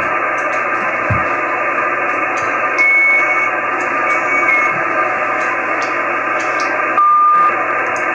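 Single-sideband receiver hiss from an Icom IC-9700 listening to a linear satellite transponder's downlink, with no station talking. Short steady whistling tones come through about three seconds in and again around four seconds, a lower one near the end, and there is a low thump about a second in.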